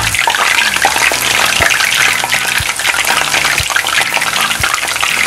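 Vegetable kakiage tempura deep-frying in oil at about 180 °C: a dense, steady crackling sizzle as the batter fritter cooks.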